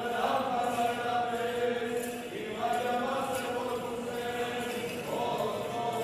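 Armenian church liturgical chant: voices holding long notes that change pitch every two seconds or so.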